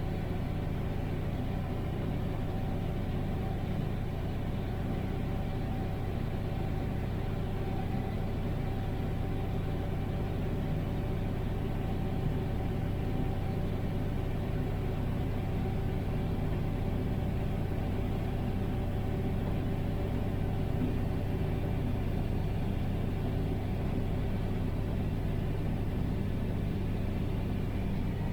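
Combine harvester running steadily while harvesting corn: a constant engine and machinery drone with a steady hum.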